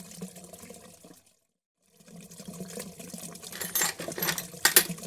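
Water running on and on, as from a toilet that won't stop. It cuts out completely for under a second, then comes back with several sharp clicks and rattles of something being handled.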